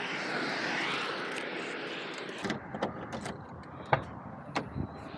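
A steady rushing noise with a slowly sweeping tone that cuts off abruptly about two and a half seconds in, followed by a few scattered clicks and knocks.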